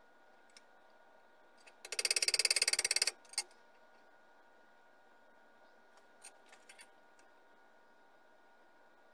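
A rapid run of sharp clicks, about twenty a second, lasting just over a second, followed by a single click, then a few faint clicks later.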